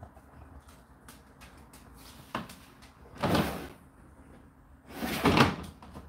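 Indesit IDC8T3 condenser tumble dryer running with a steady low hum. A click about two seconds in, then two loud knocks and rustles of about half a second each at the dryer's front door, about three and five seconds in.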